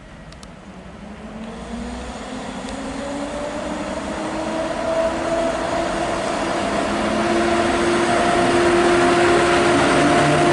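EP07 electric locomotive pulling away with a passenger train, its traction motors whining in a slowly rising pitch that grows steadily louder as it gathers speed and nears, over the rumble of wheels on rails.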